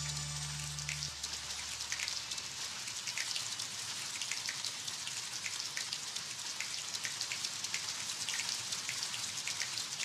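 Steady pattering of rain, a dense even hiss full of small scattered drips and ticks. The last low note of the preceding music dies away about a second in.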